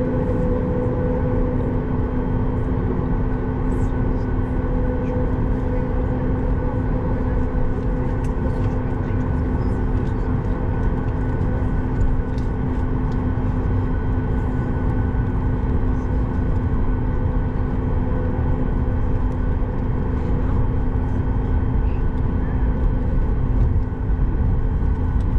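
Cabin sound of a Boeing 737 MAX 8 with its CFM LEAP-1B turbofan engines running. It is a steady low rumble with a few constant humming tones held over it, and a few faint light ticks.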